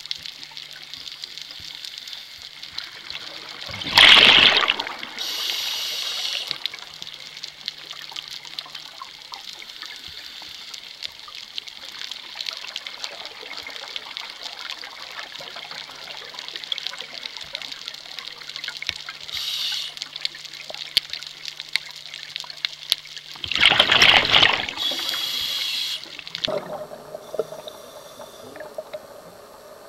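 Underwater scuba breathing: two slow breaths about twenty seconds apart, each a loud rush of exhaled regulator bubbles lasting about a second, followed by a shorter high hiss. A steady fine crackling runs underneath.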